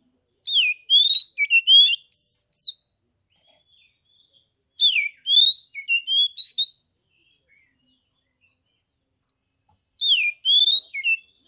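Oriental magpie-robin (kacer) singing its clear, full-voiced ngeplong song: three short bursts of loud whistled notes that sweep up and down, separated by pauses of a couple of seconds.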